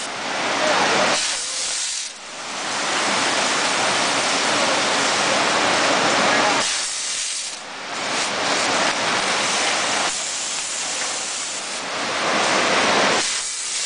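Loud steady hissing from a running screw weighing and packaging machine, dipping briefly about two seconds in, again near the middle, and near the end.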